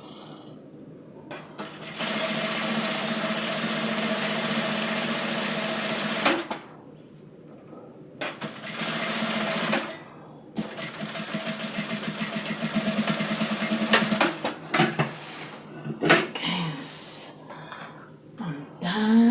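Electric sewing machine stitching in three runs of a few seconds each with brief stops between, its motor giving a steady hum. Near the end come a few irregular knocks and clicks.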